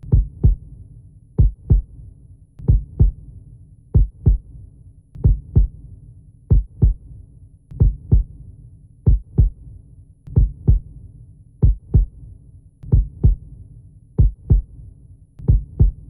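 Slow heartbeat: paired low thumps, lub-dub, about one pair every second and a quarter, over a low steady drone.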